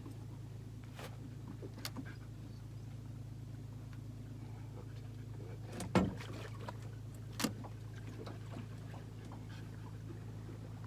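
Boat motor running with a steady low hum, with a few sharp knocks and clicks on top, the loudest about six seconds in and another about a second and a half later.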